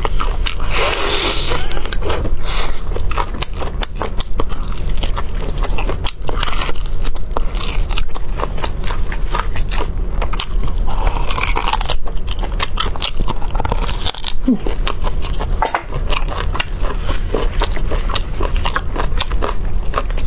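Close-miked chewing and biting of braised beef bone marrow and chewy tendon. It is a dense, continuous stream of mouth clicks and smacks, with sucking from the bone.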